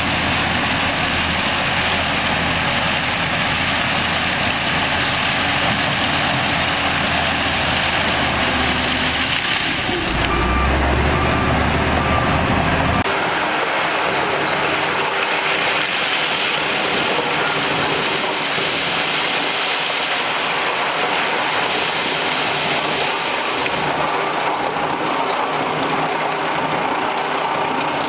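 Heavy diesel construction machinery running at a worksite, with a short series of reversing beeps about ten seconds in. The deep engine rumble drops away about halfway through, leaving steadier, higher-pitched machine noise.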